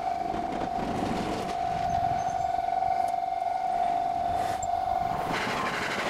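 Japanese level-crossing warning alarm sounding as one steady high tone, with the rushing noise of an electric train passing across the crossing about five seconds in, which briefly drowns it out.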